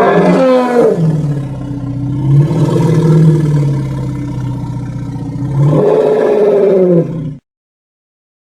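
Elephant roar sound effect: one long, deep, rough call that starts suddenly, drops in pitch over the first second, holds low, swells again near the end and cuts off abruptly.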